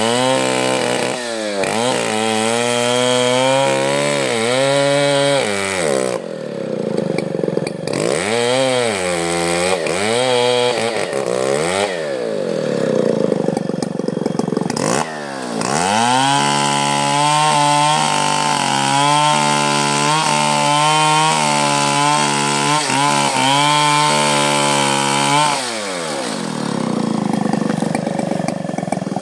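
Two-stroke chainsaw revving in several short bursts, then held at high revs for about ten seconds with its pitch dipping slightly as it cuts into teak wood, before dropping back toward idle near the end.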